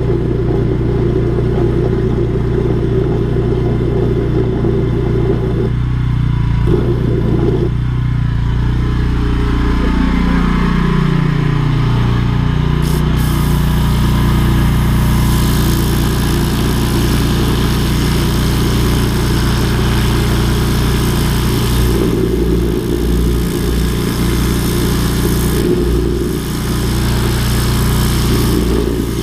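Engine of a drain jetting machine running steadily, its pitch dipping and coming back up about ten seconds in. From about halfway a broad hiss joins over it.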